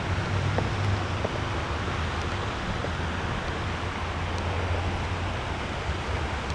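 Steady wind noise on the microphone over an outdoor background, with a steady low hum underneath.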